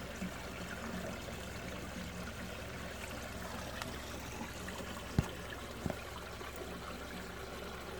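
Spring water pouring steadily from a crack in the rock, a continuous trickling stream. Two short knocks cut through it about five and six seconds in.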